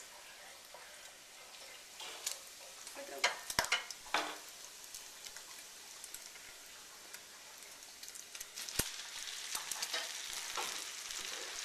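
Grated potatoes frying in butter and bacon fat in a pan, a steady sizzle, with a few sharp knocks and scrapes of a utensil against the pan, clustered about three to four seconds in and once again near nine seconds.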